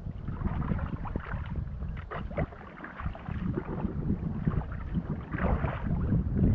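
Kayak being paddled: paddle blades splashing into the water on the strokes and water moving along the hull, under heavy wind rumble on the microphone.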